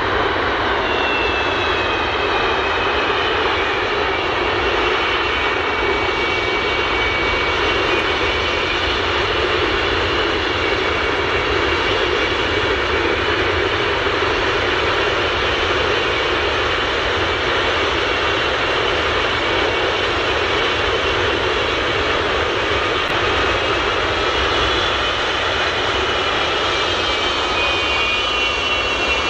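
Antonov An-225 Mriya's six Ivchenko-Progress D-18T turbofans running at low power as the aircraft rolls slowly along the ground. A steady jet rumble carries a high turbine whine that sinks a little over the first few seconds and climbs again about 25 seconds in.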